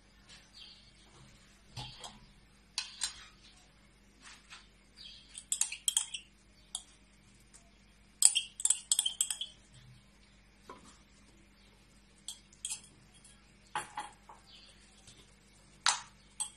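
A wooden spoon scooping tomato paste out of a glass jar over an aluminium pot: scattered clinks, taps and scrapes of spoon on glass and metal, thickest about halfway through, with a couple of single sharp knocks near the end.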